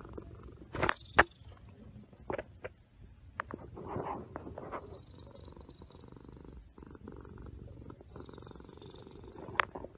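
Cat purring close to the microphone, a steady low rumble going in long cycles. Several sharp knocks and rubbing noises cut across it, the loudest about a second in and another near the end, as the cat's face presses against the phone.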